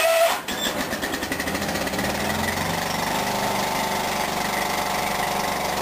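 John Deere 210 lawn tractor's single-cylinder Kohler engine running just after a cold start in freezing weather, with the throttle set a little below full. It is uneven for the first second or two, then settles into a steady, rapid even beat as it begins to warm up.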